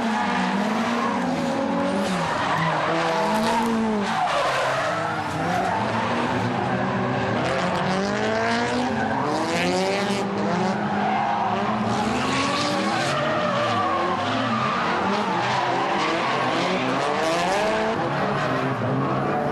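Drift cars' engines revving hard, their pitch rising and falling over and over as the cars slide, with tyres squealing and skidding on the tarmac.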